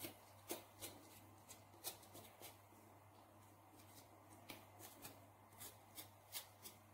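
Knife tip scraping the skin off a fresh ginger root: a series of short, faint scratchy strokes at an uneven pace, pausing for a moment in the middle.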